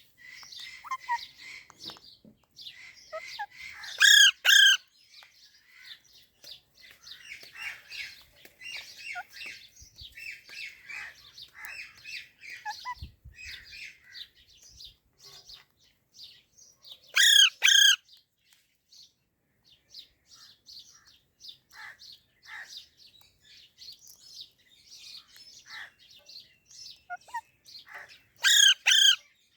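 Baby parrot chirping in a near-continuous stream of quick, soft chirps. Three times (about 4 s in, about 17 s in and near the end) there is a much louder, shrill call given twice in quick succession.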